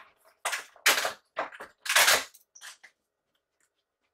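A handful of short sharp clacks and knocks from cardboard packaging being handled, about five of them over the first three seconds.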